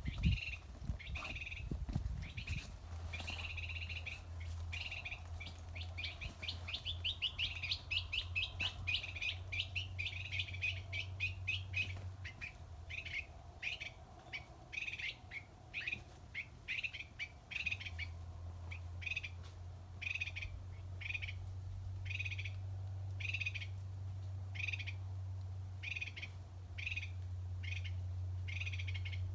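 A bird calling repeatedly: first a quick run of chirps, then single chirps about one or two a second, over a steady low rumble.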